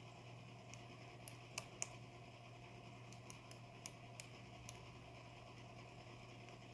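Faint, irregular metallic clicks of a lock pick working the pins inside a Medeco padlock core, about ten small ticks in the first five seconds, as the pins are set one by one.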